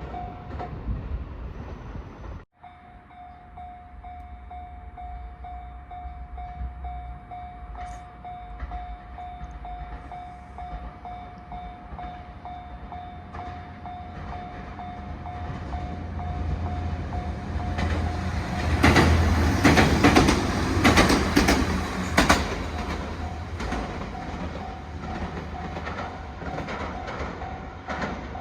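Japanese level-crossing warning bell sounding steadily while a diesel train passes. The train's rumble builds over several seconds and peaks with a quick run of wheel clacks over the rail joints, then fades as the bell keeps sounding.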